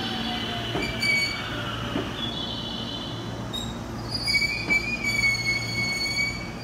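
521 series electric train rolling slowly past at a station: a steady low motor hum and a whine that falls in pitch as it slows. High wheel squeals grow louder in the second half, and a few sharp clunks from the wheels over the rails come about a second, two seconds and nearly five seconds in.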